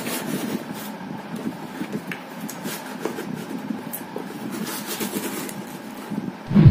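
Handling noise from a plastic full-face off-road helmet being worked on and turned over in the hands: rustling, scraping and scattered light clicks. Near the end there is a dull thump as the helmet is swung round.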